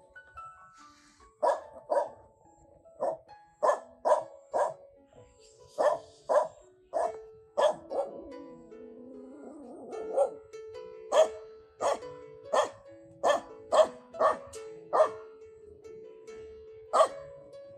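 A dog barking repeatedly, about twenty short sharp barks at uneven intervals, over background music with held notes.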